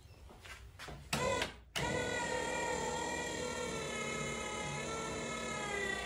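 Linear actuator's electric motor whining steadily as it drives the trolling motor's tilt mount, starting about two seconds in after a short louder burst.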